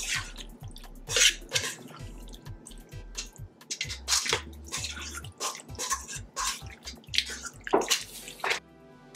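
Hands tossing soft, marinade-soaked watermelon cubes in a stainless steel bowl: irregular wet squelches with light clicks against the metal.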